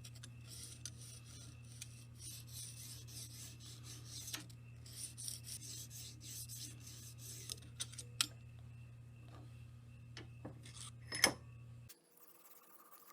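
Oiled Lansky fine hone (600 grit) rasping in repeated strokes along a steel knife edge held at a fixed angle in the clamp, a stage in working down to the finer stones. A sharp click near the end, and a steady low hum stops suddenly about a second before the end.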